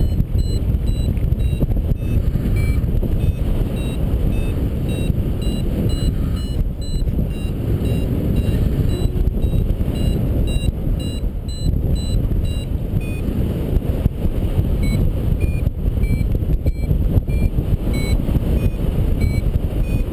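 Paraglider's variometer beeping in short pips, about two to three a second, their pitch shifting up and down, the audio signal that the glider is climbing in lift. Steady rush of airflow on the microphone underneath.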